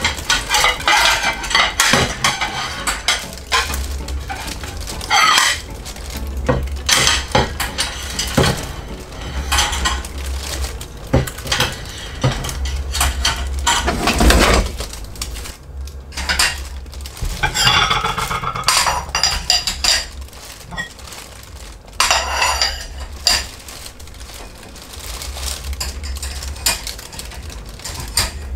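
Plates, bowls and glasses clattering and clinking as they are set into a metal wire dish rack, in irregular knocks and clinks throughout.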